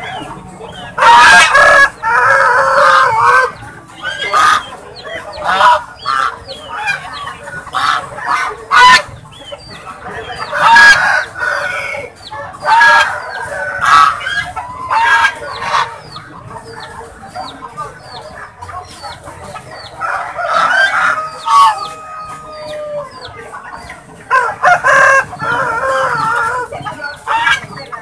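Domestic white geese honking and calling, in loud bouts with quieter stretches between, the loudest near the start, about halfway, and near the end.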